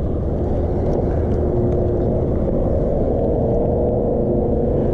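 Wind buffeting the camera microphone on an open kayak: a steady low rumble, with a faint steady hum underneath.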